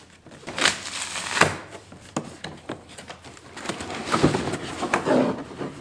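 Cardboard boxes scraping and knocking together as a boxed router is pulled up out of a shipping carton, with brown packing paper rustling. A string of short scrapes and thumps, with no steady sound.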